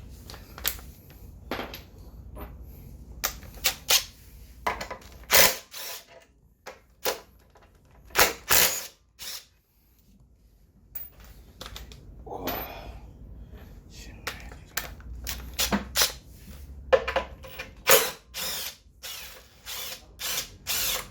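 Handheld power driver run in repeated short bursts, most about half a second long, with sharp clicks and clinks of tools and metal parts between them.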